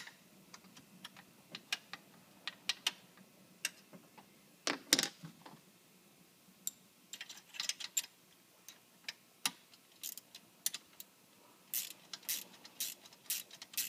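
Sharp metallic clicks of hand tools working the nuts and bolts on a golf cart's gearbox, ending in a steady ratchet-wrench clicking, about two strokes a second.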